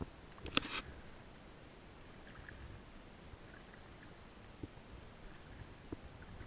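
Kayak paddle stroking calm river water: a short splash about half a second in, then faint water drips and lapping, with a couple of soft knocks near the end.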